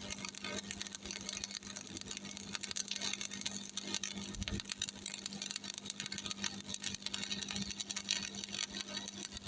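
Stick welding arc crackling steadily as an E6013 3.2 mm rod burns along the joint, powered by a Miller Thunderbolt 225, with a steady low hum beneath it.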